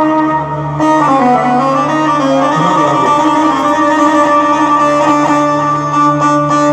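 Instrumental music from a live band: a plucked-string melody over held notes, with a quick falling run of notes about a second in and regular drum beats coming in near the end.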